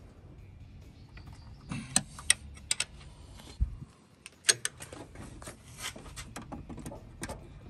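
A metal wrench clinking and knocking against engine parts in a run of irregular sharp clicks, as a serpentine belt tensioner is being bolted on.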